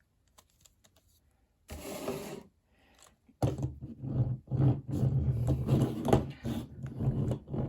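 A die-cast toy monster truck being handled on a hard surface: a brief scrape about two seconds in, then a steady rumbling rattle with many rapid small clicks.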